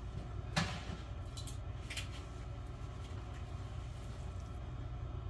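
A steady low hum with a sharp knock about half a second in and a few lighter clicks after it.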